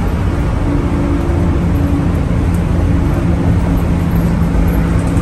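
School bus engine cruising at freeway speed through a straight-pipe exhaust, heard from inside the cab: a loud, steady drone over road and wind noise.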